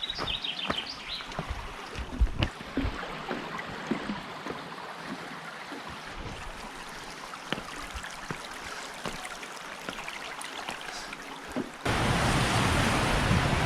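Rushing river water with scattered footsteps on a trail. About twelve seconds in, the sound cuts suddenly to a louder, steady rush of water.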